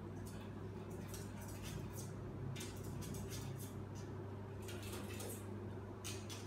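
Pet prairie dog gnawing and crunching a snack: bursts of small sharp clicks, in about five clusters, over a steady low hum.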